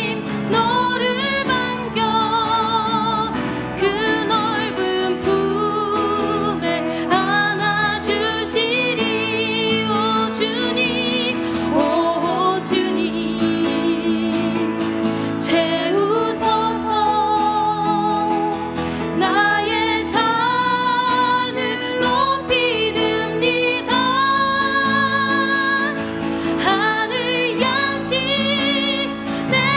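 A female voice sings a Korean worship song with vibrato on long held notes, over a steady keyboard accompaniment.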